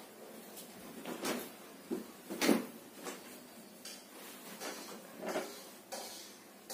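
Irregular soft rustles and bumps of people moving on a bed, with hands then rubbing through the hair and scalp in a head massage. The loudest rustle comes about two and a half seconds in.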